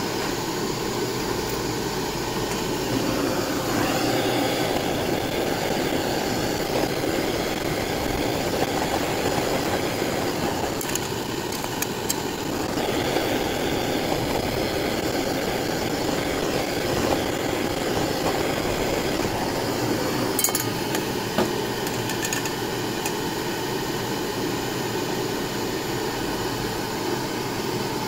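Two handheld gas jet torches burning steadily as they heat a titanium knife scale, a continuous rushing hiss, with a few light metal clinks from the scale and tools.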